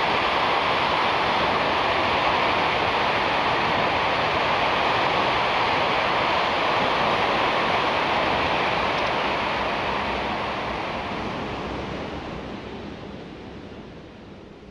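Ocean surf washing onto a beach, a steady rushing hiss of breaking waves that fades out over the last few seconds.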